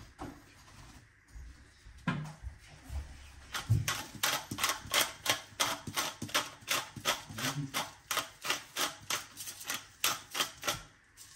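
Hand-twisted spice mill grinding over a pot: a steady run of sharp ratcheting clicks, about three a second, with a few low knocks just before the grinding starts.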